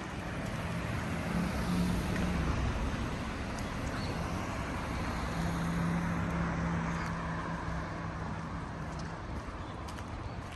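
Passing vehicle noise: a steady rumble and rush that swells about a second in and slowly eases off, with a low hum.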